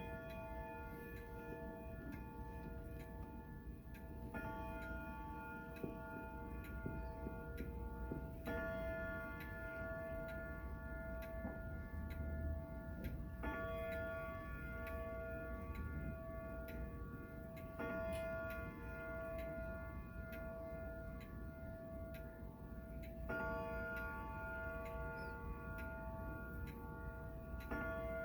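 King Arthur grandfather clock striking the midnight hour: the same ringing note is struck about every four and a half seconds, six times, each ringing on into the next, over the ticking of the movement.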